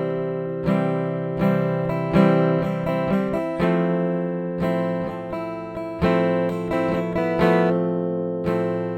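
Background music: strummed acoustic guitar chords at a steady pace, about one strum a second.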